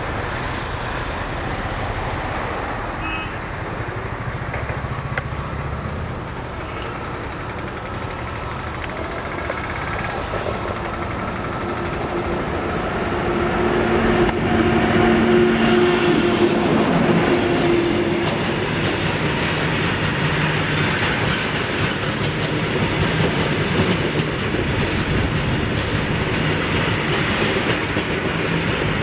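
An electric locomotive hauling a freight train of open box wagons approaches and passes close by. A growing rumble peaks about halfway through with a steady two-note hum as the locomotive goes past. Then comes the continuous clatter of the wagons' wheels on the rails.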